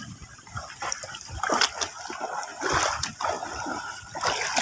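Splashing footsteps of people wading through shallow, shin-deep water, coming as irregular splashes every second or so.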